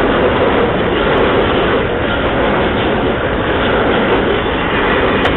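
Container freight train passing close by: the loud, steady noise of its wagons' wheels running on the rails.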